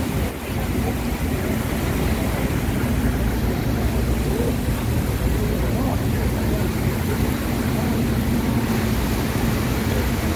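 Farm tractors and utes driving past slowly in a line, their diesel engines running steadily under the constant hiss of heavy rain.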